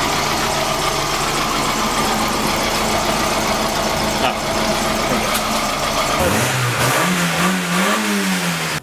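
An engine running steadily. About six seconds in, the low rumble drops away and the pitch rises and falls a few times, as in light revving.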